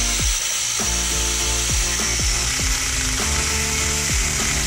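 Background music over the steady hiss of a handheld DeWalt angle grinder running, which cuts off sharply near the end.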